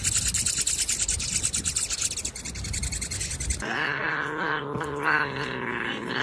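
Hummingbirds crowding a hand-held feeder, chittering in rapid high ticks about ten a second. About three and a half seconds in, this gives way to a Sphynx cat letting out a long, wavering yowl.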